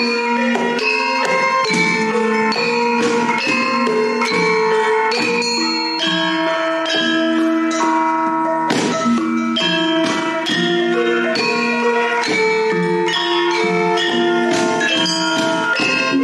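Instrumental music played on ringing, struck mallet percussion: a steady run of pitched notes, each starting with a strike and ringing on.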